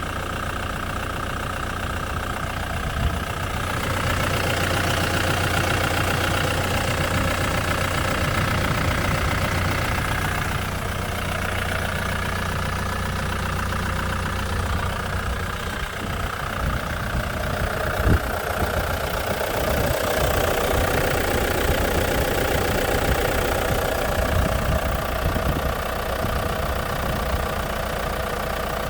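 Ford Mondeo Mk3 engine running at idle with a steady, rapidly repeating knock, one sharper knock about two-thirds of the way through. The knock comes from a faulty vacuum-operated EGR valve, not from inside the engine.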